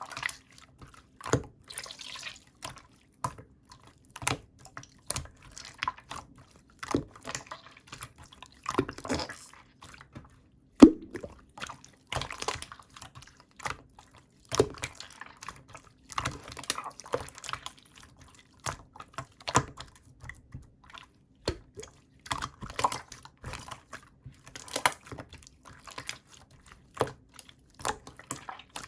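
Clear, chewy jelly slime being squeezed and worked by hand: irregular wet clicks, squelches and small pops, with one sharper pop about eleven seconds in.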